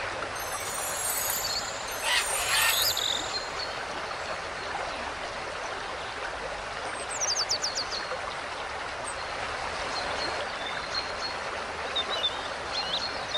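Steady outdoor ambience, an even rushing hiss, with a few short bird chirps and a quick falling trill about seven seconds in.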